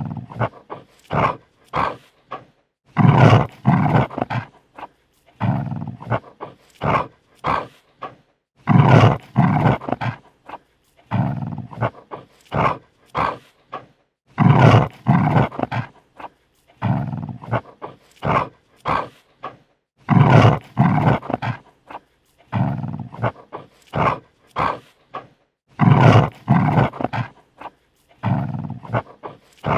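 Dog snarling defensively in short, harsh bursts with brief silent gaps, and louder bouts about every two to three seconds.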